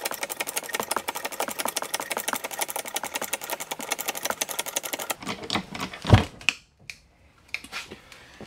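Husky 12-ton hydraulic bottle jack being pumped by its handle, a fast, even clicking rattle, as it presses a board down on an ATV tire's sidewall to break the bead; the jack is low on fluid. The clicking stops about five seconds in, and a single heavy thump follows about a second later.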